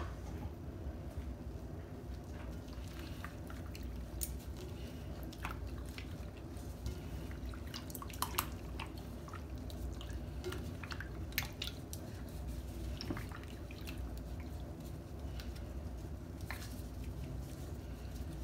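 Gloved hands squeezing and turning wet raw pork cubes in a glass bowl: soft, irregular wet squelches and a few sharp ticks over a steady low hum.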